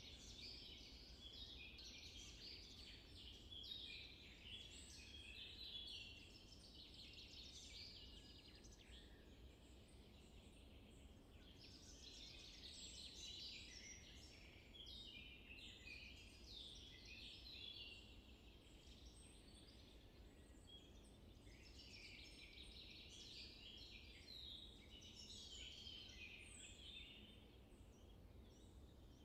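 Faint chorus of small songbirds: many short chirps and trills overlapping without pause, over a low steady background hiss.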